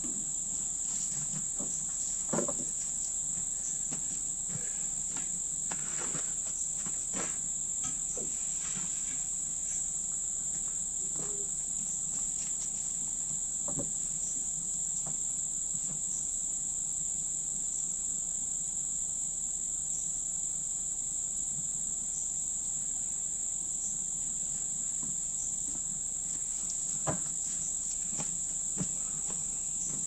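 Steady, unbroken high-pitched drone of a chorus of insects, with a few scattered knocks.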